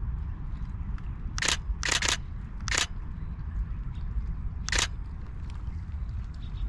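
Camera shutter firing five separate times: one shot about a second and a half in, a quick pair half a second later, another just before three seconds, and a last one near five seconds.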